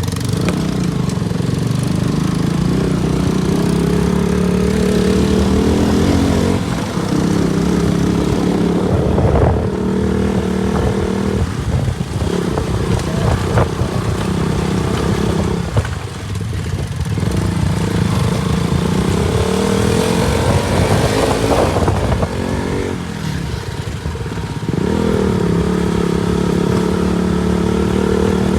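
KTM RC 200's single-cylinder engine running under way, its note climbing with the revs and dropping several times as it is throttled and shifted, with wind and road noise over it.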